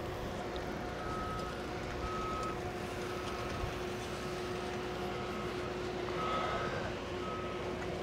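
Vehicle backup alarm beeping about once a second, starting about a second in, over a steady machinery hum.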